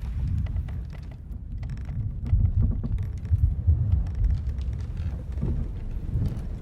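Ship-at-sea ambience: a deep rumble of sea and hull swelling to its loudest in the middle and easing off, with scattered small wooden creaks and ticks.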